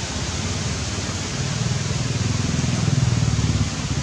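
An engine running steadily with a low, throbbing hum that grows louder about one and a half seconds in, over a steady high hiss.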